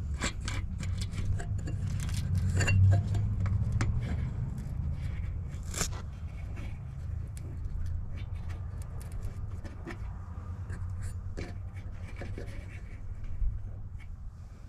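Small metallic clicks and scrapes as a nut is turned by hand on its bolt and an aluminum Z bracket is handled against the solar panel's aluminum frame, busy for the first six seconds and sparser after. A low rumble runs underneath.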